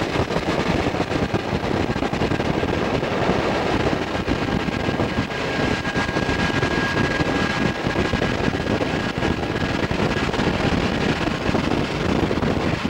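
Wind rushing over the microphone of a car pacing Santa Fe diesel locomotives as they run downhill in dynamic braking, with the locomotives' engine noise under the wind. A faint steady whine comes in about five seconds in and fades out around ten seconds.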